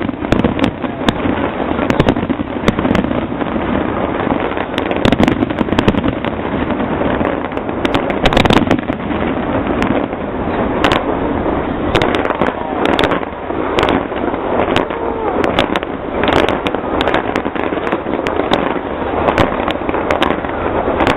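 Aerial fireworks bursting in a dense, irregular run of sharp bangs over a continuous crackling rumble.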